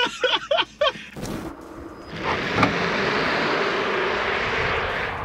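Laughter for about a second, then, after a cut, a steady, even rushing noise that starts suddenly about two seconds in and eases slightly near the end.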